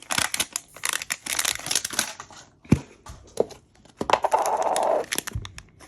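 Crinkling and rustling of small plastic packaging being torn open and handled as a Mini Brands pack is unwrapped. A sharp click comes a little under three seconds in, and a denser stretch of rustling comes about four seconds in.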